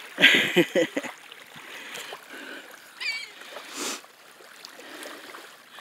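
Seagulls calling over the steady wash of small waves lapping on the shore, with a loud burst of calls about a quarter of a second in and a short run of quick, high swooping notes about three seconds in.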